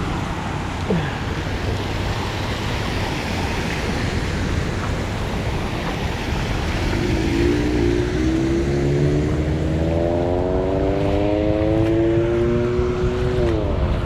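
A motor vehicle's engine comes up about halfway through, climbing slowly in pitch, then drops sharply in pitch near the end, over a steady rushing noise.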